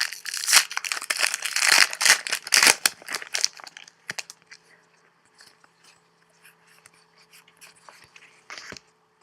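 Trading-card pack wrapper crinkling and tearing open, dense and crackly for about the first three seconds, then fainter scattered rustles and ticks with a short crinkle near the end.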